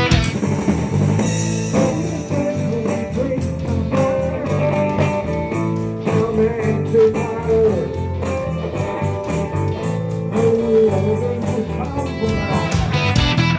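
Music led by guitar, with a wavering melody line over a steady accompaniment.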